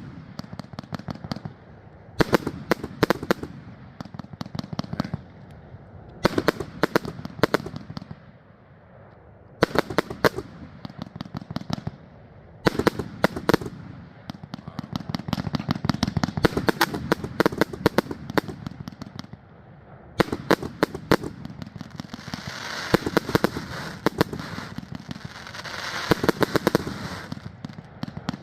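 Consumer firework cake firing in 'machine gun' volleys: rapid strings of sharp shots, each volley lasting about a second, coming again and again with short gaps between. Near the end a longer run of shots is mixed with high crackling.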